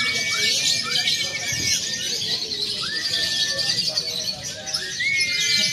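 Many caged lovebirds singing at once in a dense, high, continuous chattering twitter. Clear whistled notes cut through it, each swooping up and then holding steady, several in the first few seconds and again near the end.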